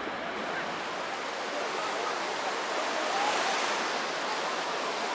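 Small waves breaking and washing on a sandy beach, a steady rush of surf that swells a little about three seconds in.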